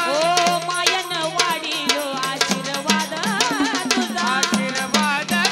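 Marathi devotional folk song performed live: a singer's melody over fast, steady drum beats and other percussion.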